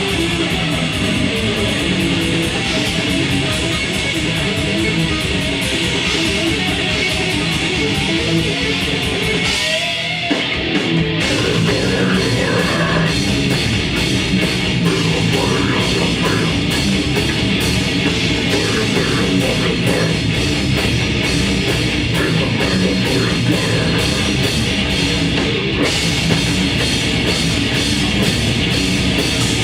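Live grindcore band playing loud and fast, with distorted electric guitars over rapid drumming. There is a short break about ten seconds in before the full band crashes back in.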